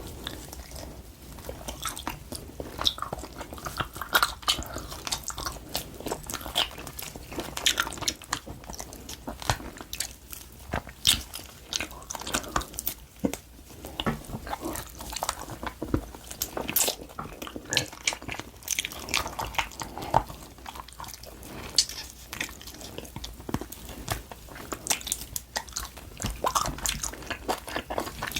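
Close-miked chewing and biting of grilled LA galbi, marinated beef short ribs, with many sharp, irregular mouth clicks and smacks.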